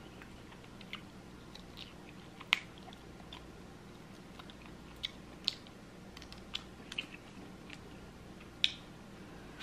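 Close-miked mouth sounds of eating chicken wings: scattered wet clicks and smacks as meat is chewed and sucked off the bones and fingers are licked, a few of them sharper and louder, over a faint steady low hum.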